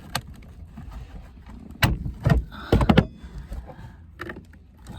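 Plastic car trim being pried and handled: a series of sharp knocks and clicks, loudest in a cluster of four or so around the middle, over a low rumble.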